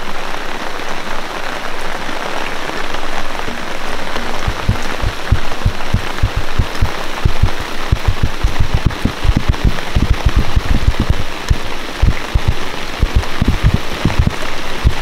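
Rain falling steadily as an even hiss, with heavy drops landing close by as irregular low thuds from about four seconds in, coming more often towards the end.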